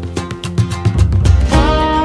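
Background music led by a strummed acoustic guitar, with a held melody line coming in about halfway through.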